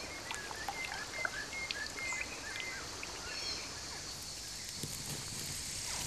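Natural ambience of scattered short bird chirps over a steady hiss, with the high hiss growing stronger near the end.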